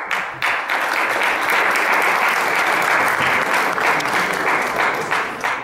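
Audience applauding: many people clapping together, starting abruptly, holding steady and dying away near the end.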